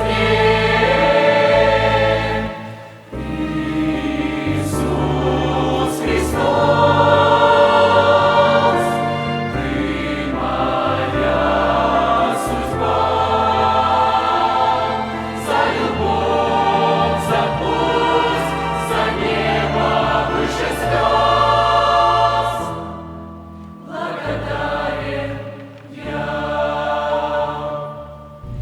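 Youth choir singing a Russian-language Christian worship song with accompaniment, the sound dipping briefly between phrases about three seconds in and again near the end.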